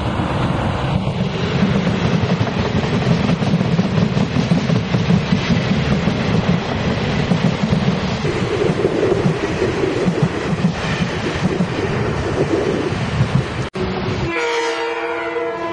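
Electric locomotive E404 hauling Chu-Kuang express coaches past at close range: a steady loud rumble with clattering wheels on the rails. After a sudden cut near the end, a locomotive horn sounds with one steady chord.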